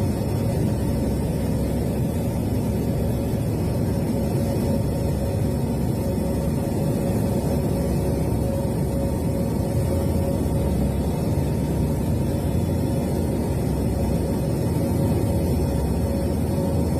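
Airliner engine noise heard from inside the cabin during the final approach to landing: a steady low rumble with a constant hum.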